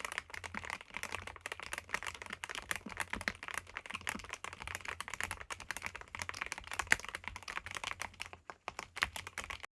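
Fast typing on a YUNZII B75 Pro gasket-mounted mechanical keyboard with YUNZII MILK switches and PBT keycaps: a dense, irregular run of keystrokes that thins out near the end.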